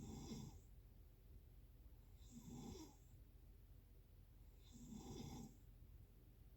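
Faint snoring in a steady rhythm: three rough snores, one about every two and a half seconds.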